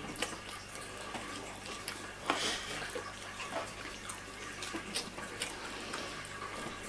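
Quiet, irregular small clicks and smacks of people eating fried chicken with their hands, with one louder smack about two and a half seconds in.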